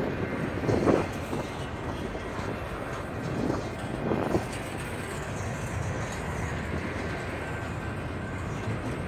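Double-stack container train's loaded well cars rolling past: a steady rumble of steel wheels on rail, with louder clattering swells about a second in and twice around three to four seconds in.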